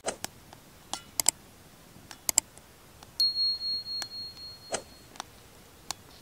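Wood fire crackling with sharp pops, several coming in quick pairs. About three seconds in, a high steady ringing chime swells and fades for about a second and a half: a subscribe-button notification-bell sound effect.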